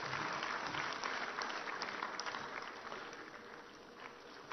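Audience applauding, a steady patter of many hands clapping that dies down near the end.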